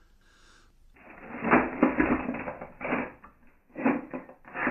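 Rummaging through a closet: objects clattering, knocking and rustling as they are shoved about, in uneven muffled bursts starting about a second in.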